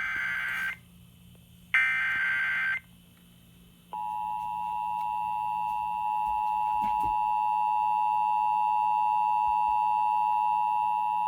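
Emergency Alert System tones over FM radio. First come the end of one screechy SAME header data burst and a second burst about a second long. About a second later the EAS attention signal starts: a steady two-tone alarm that holds for about seven and a half seconds, announcing a severe thunderstorm warning.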